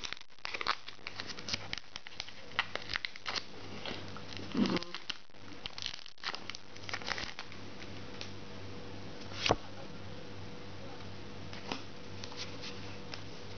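A foil Pokémon booster pack wrapper being crinkled and torn open by hand: a busy run of crackles over the first seven seconds, then only a few scattered crinkles.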